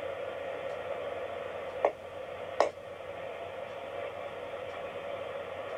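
Steady hum and hiss of room background noise, broken by two short clicks a little under a second apart near the middle.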